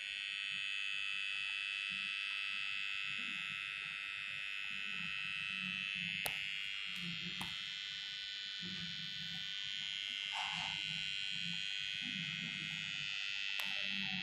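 Steady high-pitched electrical whine from a running Chinese Hanbao inverter under power, its transformer and oscillator-driven board singing with a few close tones. A couple of faint clicks come a little past the middle.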